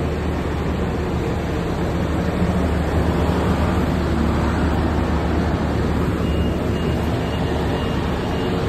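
Steady low rumble of a large bus's diesel engine idling at the kerb, mixed with street traffic noise. It swells slightly as the bus is passed.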